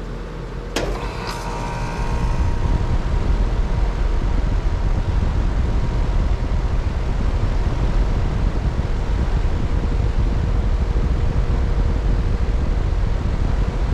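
Lennox Merit Series air conditioner outdoor unit starting up. A sharp click comes about a second in, then the running sound builds over a couple of seconds into a steady whir with a faint hum tone as the unit comes up to full run.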